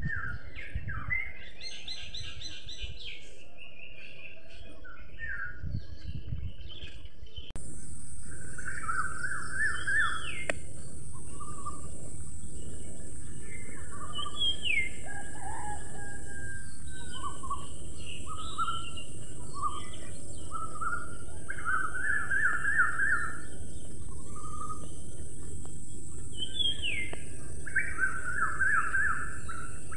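Small birds chirping and calling over and over, short quick notes that rise and fall in pitch. About seven seconds in, the overall sound steps up in loudness and a steady high hiss joins the birdsong.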